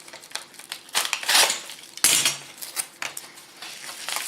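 A parcel being opened by hand: packaging rustling and clattering in a few irregular bursts, loudest about a second and two seconds in.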